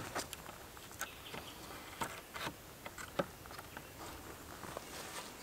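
Scattered light knocks and clicks of green wooden poles against each other as a bush shelter frame is fitted together, over a steady background hiss.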